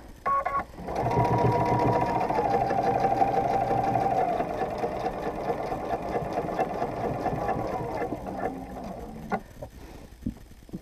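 Domestic sewing machine stitching steadily in free-motion mode with the feed dogs lowered, the quilt guided by hand along a ruler under a ruler foot. After a short burst about a third of a second in, it runs evenly, then slows and stops a little before the end, followed by a single click.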